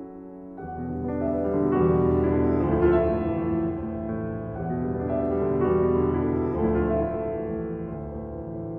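Background music led by piano, with sustained chords and a bass line that comes in about half a second in.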